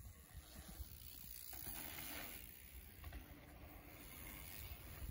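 Low, uneven wind rumble on the microphone, with bicycles rolling over the dirt pump track and the faint ticking of their freewheels as the riders coast.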